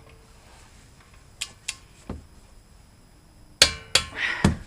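Metal hand tools clinking and clanking against each other. There are three light clinks from about a second and a half in, then a louder cluster of ringing metal clanks near the end.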